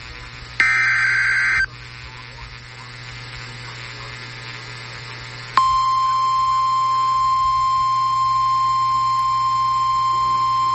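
NOAA Weather Radio receiver sounding an Emergency Alert System alert: a loud one-second burst of digital data tones, a few seconds of radio hiss, then the steady single-pitch 1050 Hz Warning Alarm Tone starting about halfway through. This is the alarm that comes before a broadcast warning message, here a severe thunderstorm warning.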